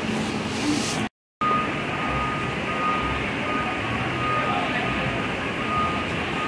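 Street traffic noise: a steady rumble of vehicles, broken by a short dropout about a second in. After it a faint high beep comes and goes.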